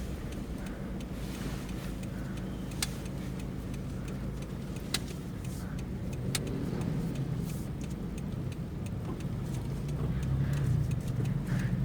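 Toyota Fortuner's 2KD-FTV 2.5-litre four-cylinder diesel running at low road speed, a steady low drone that grows a little louder near the end. Three sharp clicks are heard in the first half.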